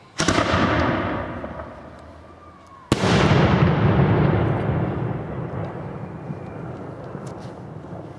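Two loud fireworks bangs about three seconds apart, each followed by a long rolling echo that fades over several seconds.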